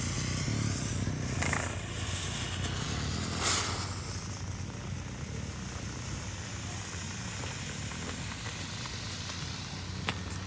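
Distorted, bass-heavy music buzzing out of an overdriven speaker while a coloured smoke bomb burns inside it and hisses. There is a sharp burst of hissing about three and a half seconds in, after which the hiss fades under the bass.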